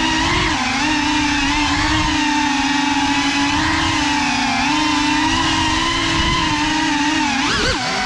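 An FPV drone's brushless motors and propellers whining, heard close from the camera it carries. The pitch wavers up and down with the throttle, with a quick drop and surge near the end.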